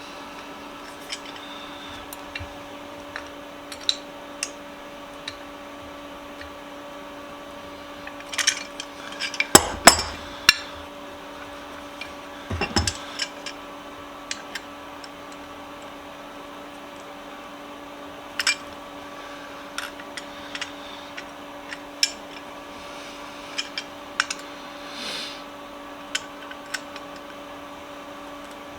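Metal clicks and clinks of pliers and the small cast-iron corner vise's parts being handled during reassembly, scattered throughout, with a louder run of knocks about a third of the way in and another shortly after. A steady hum runs underneath.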